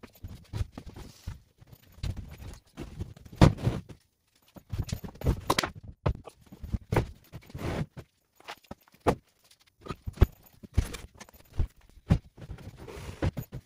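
Footsteps on a concrete floor with irregular knocks and thuds of wooden stud-framed wall panels being handled and stacked onto a trailer. The loudest knocks come about three and a half seconds and ten and a half seconds in, and the sound cuts out briefly a few times.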